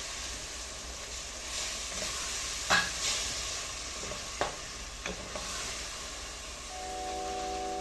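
Food sizzling in a pan as it is stirred, with a few sharp knocks of the spoon against the pan. Background music comes in near the end.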